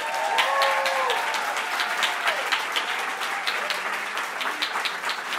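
Audience applauding: many people clapping together, dense and steady, with a few voices calling out in the first second or so.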